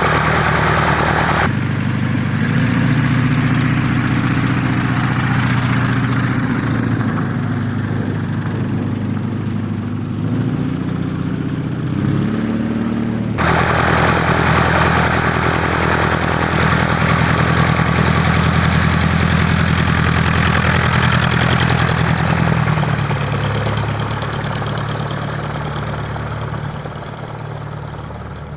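Light aircraft's piston engine running, its pitch shifting up and down, with abrupt changes in the sound about one and a half and thirteen seconds in. It grows quieter over the last few seconds.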